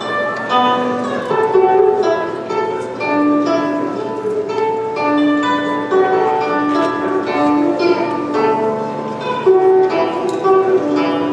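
Solo guzheng (Chinese plucked zither) playing a flowing melody of plucked notes that ring on, mixed with quick runs of higher notes.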